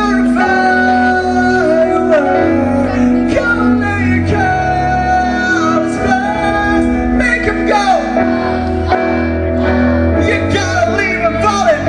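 Live band playing a pop song with a singer holding long notes over guitar, bass and drums, heard in a large hall.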